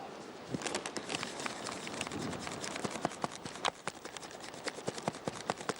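Footsteps on loose rock and gravel: an uneven run of crunches and clicks starting about half a second in.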